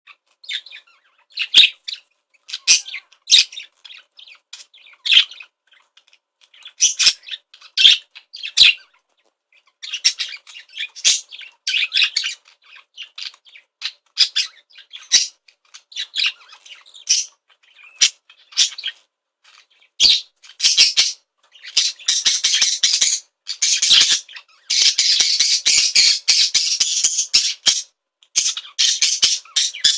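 Excited budgerigar chirping and squawking in quick, irregular bursts, which run together into a dense, almost continuous warbling chatter for several seconds near the end.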